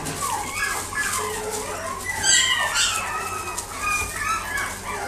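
Shiba Inu puppy whining and yipping in short, high squeals, loudest about two seconds in.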